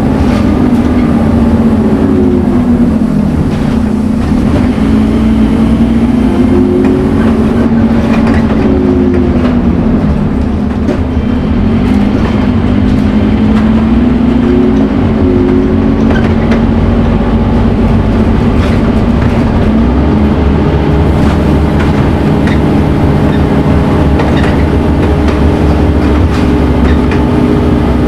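Scania N230UD Omnicity double-decker bus's diesel engine running under way. Its pitch rises and falls several times as it revs and eases off, with the hoover-like whine these buses are known for, then it holds a steady note in the later part.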